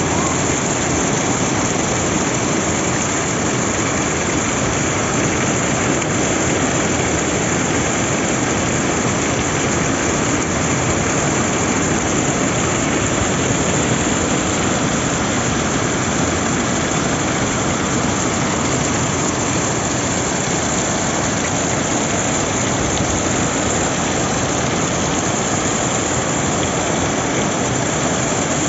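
Heavy rain falling steadily, a constant hiss of the downpour.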